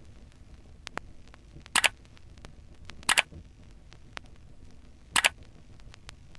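Click sound effect played three times, each a short, sharp double click, marking each new line of on-screen text as it appears. Faint ticks fall between them.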